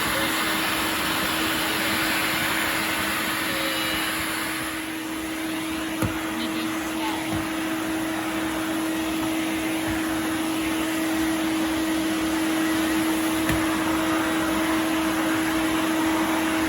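Sirena water-filter vacuum cleaner running steadily, a constant motor hum under a broad rushing hiss of air. The hiss thins briefly about five seconds in, and a single knock follows about a second later.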